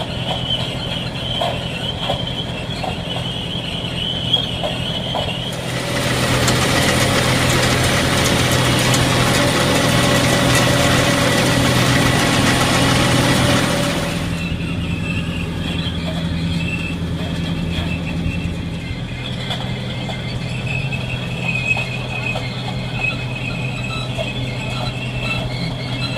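Tractor engine running steadily while towing a working potato harvester, with thin high-pitched squealing in the first few seconds and again near the end, which the driver puts down to a stone squealing in the harvester. From about six seconds in, a loud even rushing noise comes in for about eight seconds and then stops.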